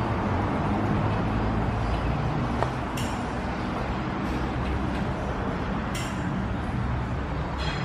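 Steady low vehicle-like rumble, with two sharp clicks about three seconds apart.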